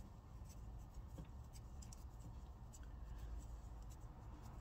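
Faint handling sounds of fingers working a small metal fuel injector clip and its tiny set screw: light scratches and scattered ticks over a low steady hum.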